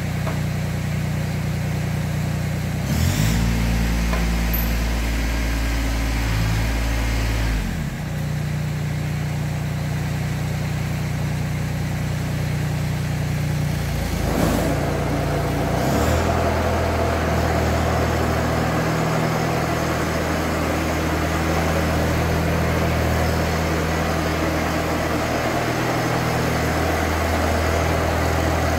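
Kubota BX2200 compact tractor's three-cylinder diesel engine running steadily. Its note changes about three seconds in and again near eight seconds. From about sixteen seconds in it runs with a fuller, busier sound.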